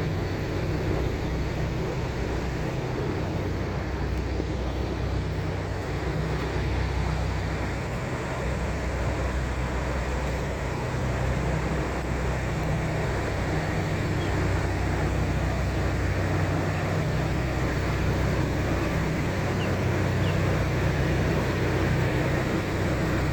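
Vehicle engine running steadily with a low hum, over an even rushing noise.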